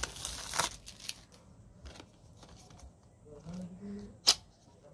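Plastic shrink-wrap crinkling as it is peeled off a small cardboard earbud box, fading to light scratching and handling, with one sharp snap about four seconds in.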